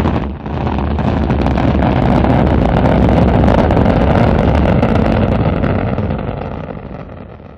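Rocket engines firing at launch: a loud, dense rumble heaviest in the low end, holding steady and then fading away over the last two seconds.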